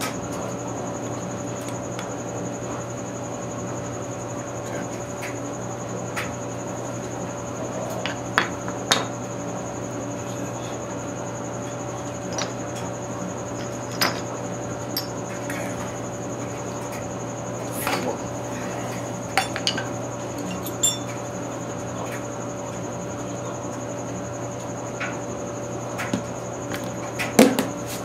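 Small metal engine parts clinking and tapping now and then, several short sharp clicks spread through, as main bearing shells and caps are handled and set on a workbench, over a steady background hum.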